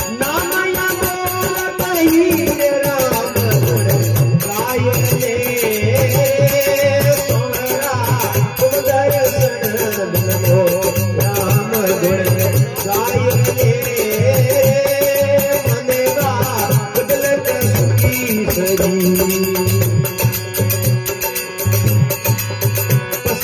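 Instrumental interlude of a Rajasthani folk bhajan: a harmonium plays the melody over a steady dholak beat, with small hand cymbals jingling in time.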